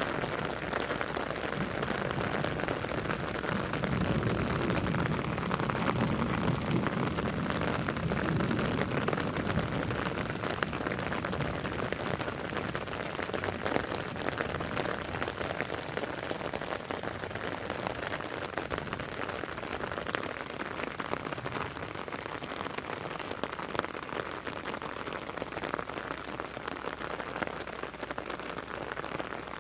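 Steady rain falling, a dense patter of many drops on surfaces. A soft low rumble swells and fades a few seconds in.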